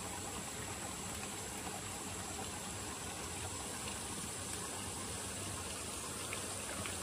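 Steady rush of running water from a stream, even and unbroken, with a thin steady high hiss above it.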